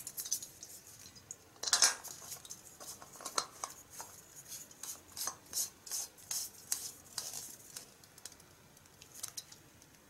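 Light metallic clicks and scrapes as an isobutane gas canister is screwed onto the brass valve of an EPIgas APSA-3 hose stove. A louder clack comes about two seconds in, then a run of small clicks that thins out near the end.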